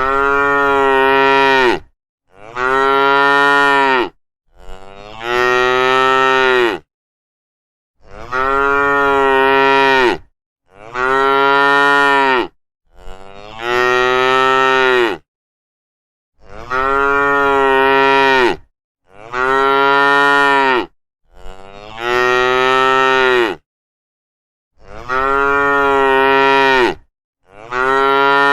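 Cattle mooing: long, pitched moos of about two seconds each, coming in sets of three with dead silence between the sets.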